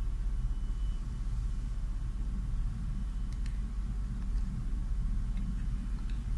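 Steady low background rumble, with a few faint clicks and ticks from fingers handling an antenna wire and a remote-control receiver's plastic enclosure, about three and a half seconds in and again near the end.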